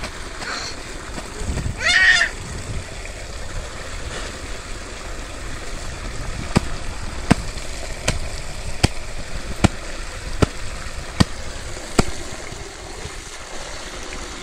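Water gushing and splashing into a shallow stream, with a brief high-pitched squeal about two seconds in. From about six seconds in, a sharp slap repeats about every three-quarters of a second as wet clothes are beaten with a wooden paddle.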